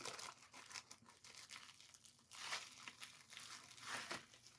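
Retail packaging of a pair of pliers being opened by hand: faint, irregular crinkling and tearing, with a few slightly louder rustles.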